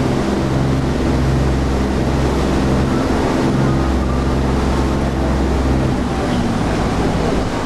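Tour boat's engine running steadily with a low, even drone, under wind and water noise; the low drone drops off about six seconds in.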